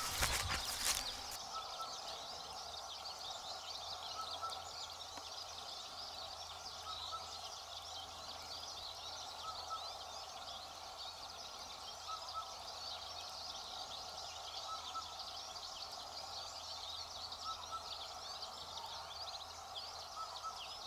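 Open-country ambience of dense, continuous high birdsong, with a short, lower call repeating every second or two and a faint steady hum underneath. A few sharp clicks come in the first second.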